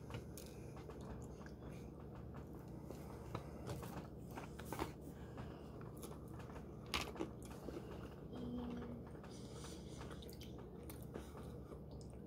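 People chewing and biting into chicken nuggets dipped in barbecue sauce, with scattered small clicks and soft handling noises.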